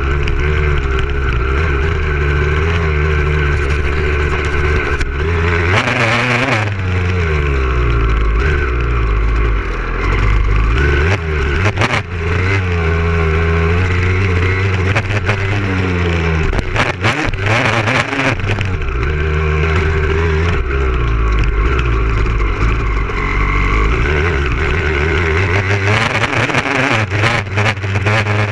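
Motocross bike engine heard on board, its revs climbing and falling again and again as the rider goes through the gears, with a few sharp knocks along the way.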